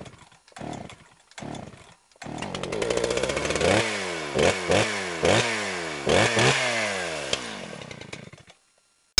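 Chainsaw engine started with three short pulls, catching about two seconds in. It is then revved in several sharp blips, each rising and falling in pitch, before dying away near the end.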